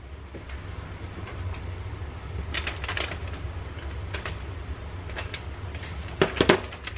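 Light clicks and scrapes of kitchen utensils in a bowl during food prep, over a steady low hum, with a quick cluster of sharper knocks near the end.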